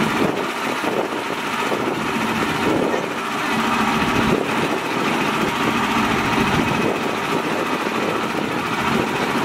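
Small engine of a mini tractor running steadily at idle.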